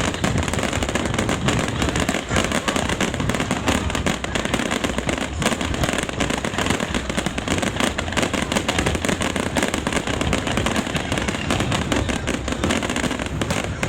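Fireworks display: a dense, continuous barrage of bangs and crackling, with no let-up.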